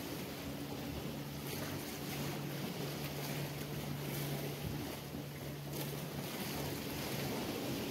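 Sea waves washing against a rock ledge, with wind on the microphone. A steady low motor hum, such as a boat engine, runs through most of it, dropping out about six seconds in and returning near the end.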